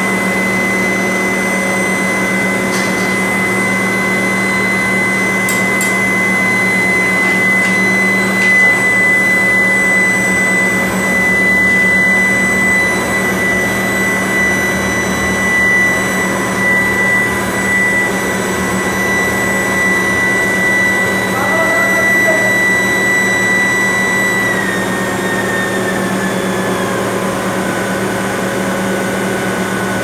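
Brass-melting induction furnace running: a loud, steady high-pitched whine over a dense rushing noise. About 25 seconds in, the whine slides a little lower in pitch and holds there.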